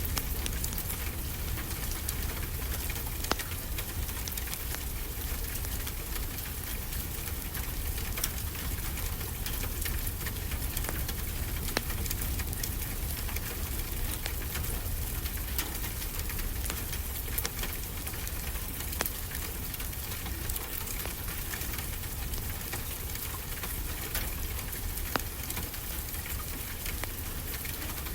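Steady rain pattering, with a low rumble beneath and occasional sharp crackles and pops from a wood fire.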